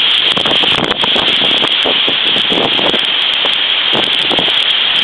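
Typhoon gale buffeting the microphone, loud and unbroken, with wind-driven rain.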